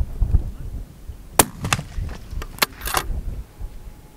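One sharp crack about a second and a half in, then about six quicker metallic clicks: a fullbore target rifle being fired and its bolt worked. A low wind rumble on the microphone runs under it.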